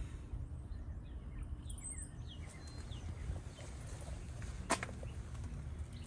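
Quiet outdoor background: a low steady rumble with faint birds chirping a second or two in, and a single sharp click about three-quarters of the way through.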